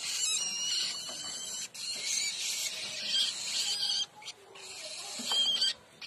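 Woodchat shrike nestlings begging for food with harsh, hissing calls, in repeated bursts with brief pauses between them.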